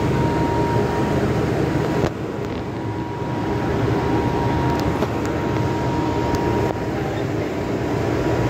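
Steady hum of an MTR Kwun Tong Line M-Train standing at an underground platform with its doors open. A thin steady tone runs through it and stops about seven seconds in.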